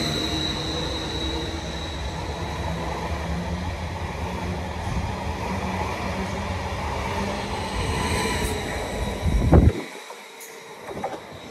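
A train passing close through the station: steady noise from its wheels on the rails and its running gear, with a high whine near the start. Just before ten seconds in there is a loud thump, and then the noise drops away suddenly.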